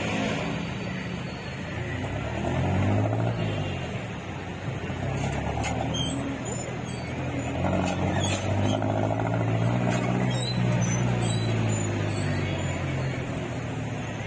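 Passenger jeepney's diesel engine heard from inside the vehicle, revving up as it pulls forward in slow city traffic, once about two seconds in and again for a longer stretch from about eight seconds. A few sharp clicks and rattles come in the middle.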